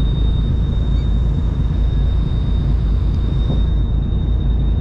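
Steady low rumble of a boat under way at sea, with wind buffeting the microphone and a thin, steady high whine.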